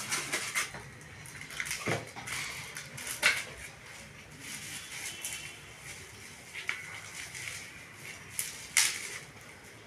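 Unboxing handling noise: a cardboard box being handled and slid open, then clear plastic wrap crinkling and rustling as it is pulled off a small part, with a couple of sharp crackles, one a little past three seconds in and the loudest near the end.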